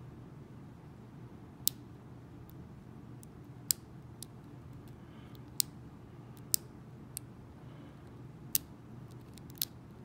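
Sharp, scattered metallic clicks from a lock pick and tension wrench working the five pin stacks of an Abus Silver Rock padlock. There are about seven clicks at uneven intervals.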